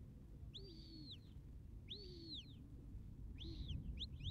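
Shepherd's whistle blown as three arched, rise-and-fall notes about a second apart, then two quick short blasts near the end: whistle commands to working sheepdogs.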